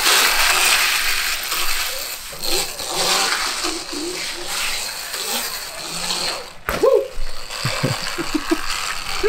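Modified 72-volt Sur-Ron electric dirt bike ridden in a wheelie: a broad whir of electric motor, chain and knobby tyres on concrete. The motor has lost power from overheating and has a noise the owners say it shouldn't make. The whir cuts off sharply near the end, followed by a few short rising-and-falling sounds.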